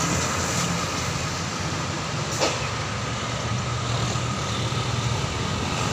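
Bus passing on the road with steady engine and tyre noise, and a short click about two and a half seconds in. No horn sounds.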